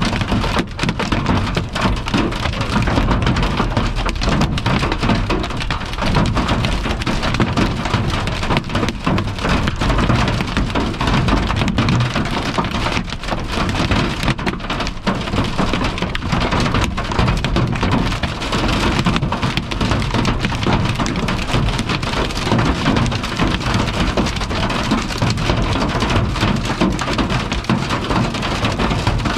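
Hail and rain pelting a car's roof and windshield, heard from inside the cabin: a very loud, steady clatter of countless small impacts over a low drumming.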